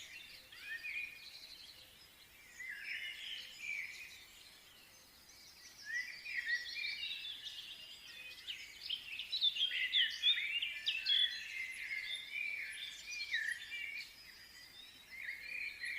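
Several small birds chirping and twittering in quick, overlapping calls, thinning out for a moment and then growing busier from about six seconds in.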